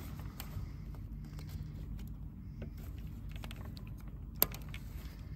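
Plastic fuel-return hose connector on a Volvo 1.6 diesel injector being worked off by hand: small clicks and rattles of the clip, then one sharp click about four and a half seconds in as the connector pops free. A low steady hum runs underneath.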